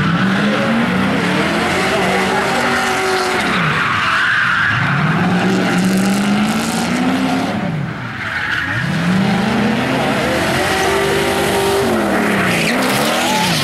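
Drift car's engine revving hard in three long surges, each climbing in pitch and then dropping back, while the rear tyres squeal and skid in a smoking slide.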